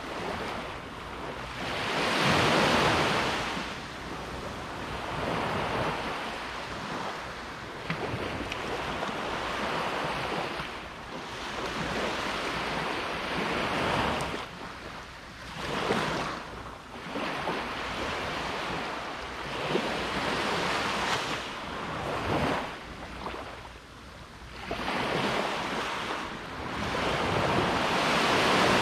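Ocean waves breaking and washing up the beach in repeated surges, the biggest about two seconds in, halfway through and near the end.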